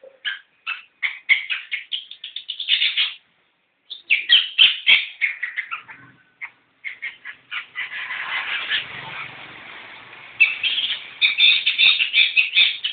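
Long-tailed shrike (pentet) singing: rapid runs of short, harsh chattering notes with a brief pause about three seconds in and a rougher, noisier passage in the middle.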